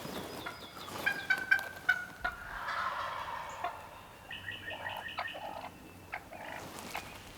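Wild turkey gobbling: rapid rattling calls, one burst about a second in and another about halfway through.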